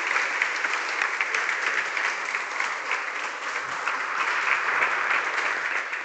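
Audience applauding steadily at the end of a conference talk.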